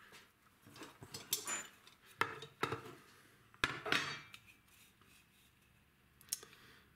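Small hard tools and parts being handled and set down during the repair of an electronic drum pad: a string of separate clicks, clinks and clatters, the loudest a little past halfway and a last one near the end.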